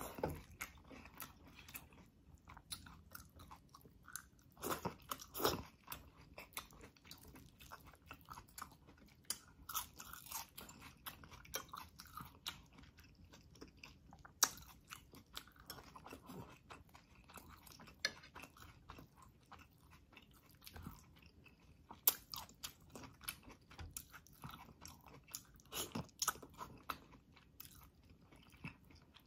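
A person chewing tomato-braised beef rib and rice, with irregular wet mouth smacks and clicks throughout.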